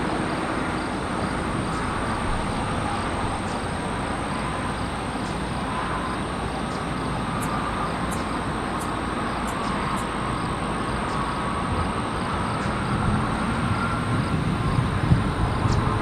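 Steady low rumble of an approaching thunderstorm outdoors: distant rolling thunder mixed with wind, swelling a little near the end.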